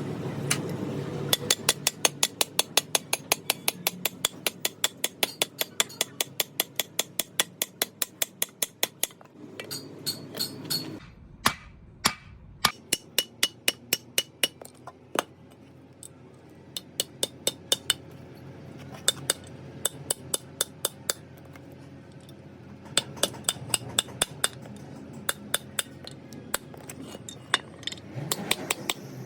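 Hammer striking metal in fast runs of about five blows a second, broken by short pauses, while a truck brake shoe is being relined.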